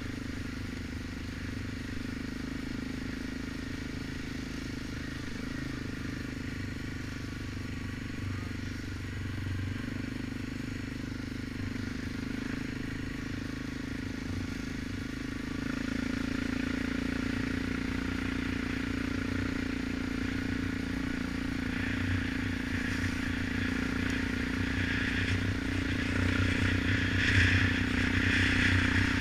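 Single-cylinder four-stroke ATV engine running steadily under way on a dirt trail. It pulls harder about halfway through, and rattling and knocking over the rough track build up near the end.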